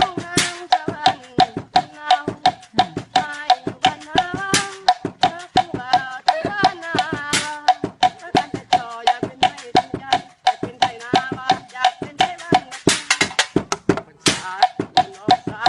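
Music played on simple, non-modern instruments: rapid, steady tapped percussion under a wavering melody.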